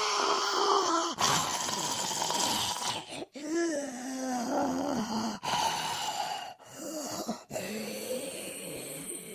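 Zombie moaning sound effects: a run of about six separate moans and groans from a human voice, each one wavering up and down in pitch, cut one straight after another.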